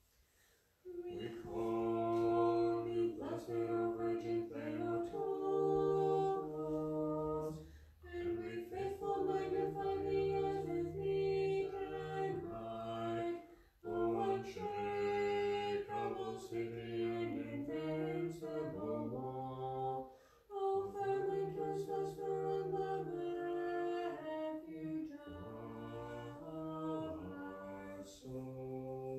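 Unaccompanied choral singing of an Orthodox Vespers hymn, in several voices in harmony. It starts about a second in and moves in long sustained phrases, with brief pauses three times.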